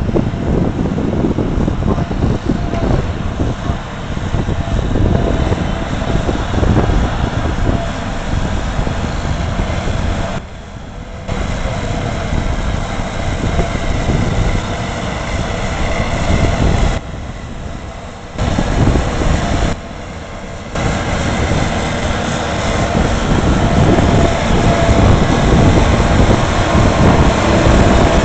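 Case IH Magnum 310 tractor running under load as it pulls a JF Stoll trailed forage harvester chopping grass, with a second tractor and silage trailer running alongside. The noise dips sharply three times around the middle and grows louder near the end as the Magnum comes close.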